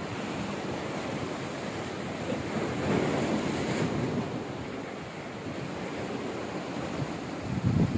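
Sea surf washing in and out among the concrete tetrapods of a breakwater, with wind on the microphone; the wash swells about three seconds in.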